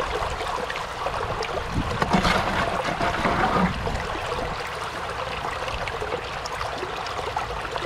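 River water rushing and trickling through a metal sluice box over a Dream Mat, with sand and gravel washing down it; a louder, crackly spell comes about two to four seconds in.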